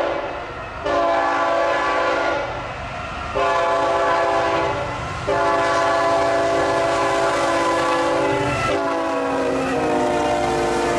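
Union Pacific freight locomotive's air horn sounding a series of loud multi-note chord blasts. The last blast is held long and drops in pitch partway through.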